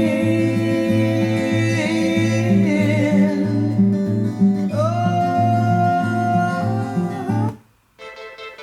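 Music with plucked guitar and a wavering sung or played melody over a repeating bass line, cutting off suddenly about seven and a half seconds in, followed by a short quieter stretch.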